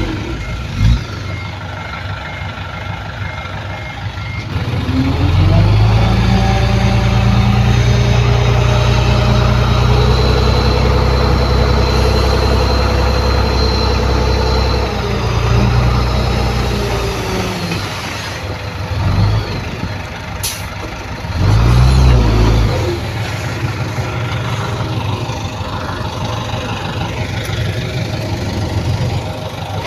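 Heavy diesel engine of earthmoving equipment revving up about five seconds in, holding high revs for around ten seconds, then dropping back, with a second short rev about two-thirds through. A reversing beeper sounds over it at the start.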